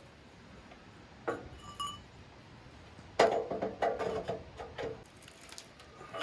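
Steel pry bar being worked against the log and the steel bed of a bandsaw mill, giving ringing metal clanks. There is a single clink about a second in, then a quick run of loud clanks for about two seconds, and one more clank at the very end.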